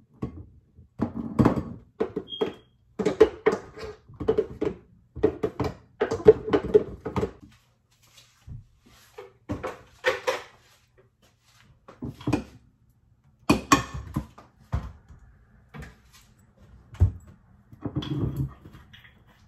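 A thick, half-frozen strawberry cream mix being scraped and knocked out of a blender jar into a glass dish. Quick bursts of knocking and scraping, some with a short squeak, run for about seven seconds, then a few scattered knocks and clunks.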